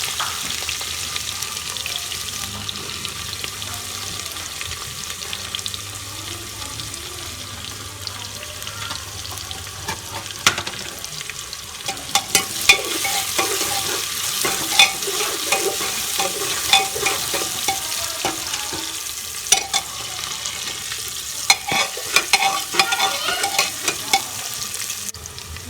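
Onion, garlic and cumin sizzling in hot oil in a pressure cooker, with a spoon stirring and scraping against the metal pot. The sizzle is steady, and from about halfway through there are many clicks and scrapes from the spoon.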